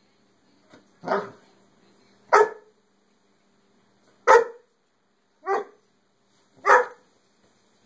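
A dog barking at a whole cow hoof chew lying in front of it: five single sharp barks spaced about a second apart, with a faint short yip just before the first.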